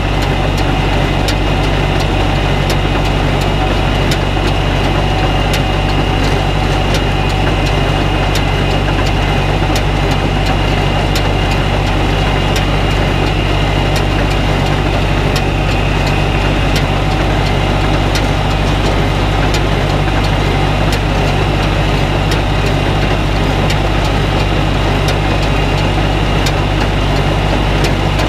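Tractor engine running steadily while driving a small square baler through its PTO shaft, with the baler's mechanism knocking in a regular rhythm as it picks up and packs hay.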